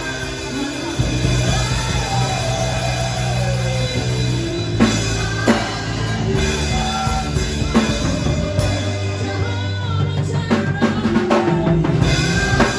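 Music with a drum kit over held chords, with drum hits standing out from about five seconds in and again near the end.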